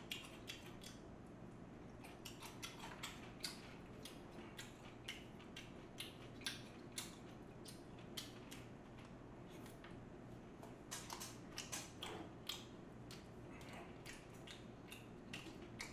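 Faint eating sounds: chewing with small wet mouth clicks, and light clicks of a spoon and chopsticks on a plate, scattered irregularly with a denser run about eleven seconds in.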